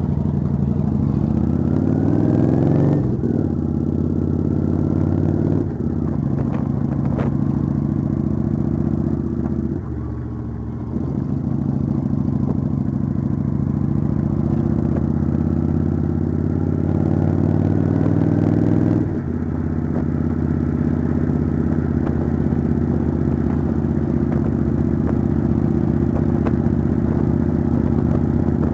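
Kawasaki Vulcan cruiser's V-twin engine under way, rising in pitch as it accelerates and dropping back at each of three gear changes, about three, six and nineteen seconds in. It eases off briefly around ten seconds in, then pulls on steadily.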